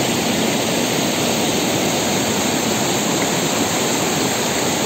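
Steady, loud rush of a fast, rain-swollen river, the water pouring over a low weir.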